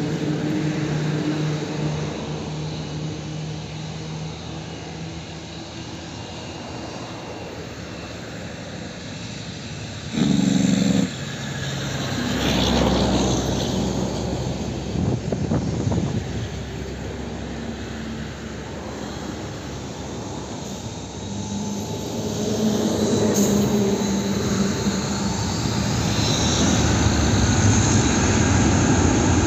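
Jet engines of a twin-engine Airbus A320-family airliner running at low power as it taxis and lines up on the runway, then growing louder with a rising whine in the last third as thrust comes up for the takeoff roll. A brief loud burst of noise cuts in about ten seconds in.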